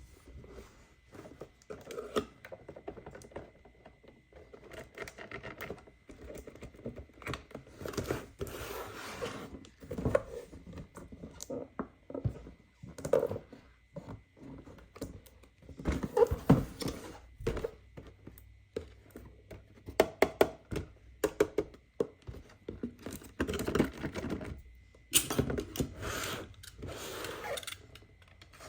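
Hands unboxing a toy's cardboard and plastic packaging: irregular clicks, taps and knocks with stretches of rustling.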